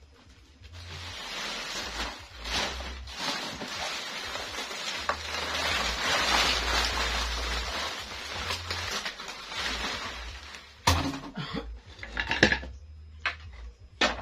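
Large plastic bag full of crisp sand-fried crackers (kerupuk) being handled and shaken: a steady crinkling rustle of plastic and crackers, followed near the end by a few sharp knocks.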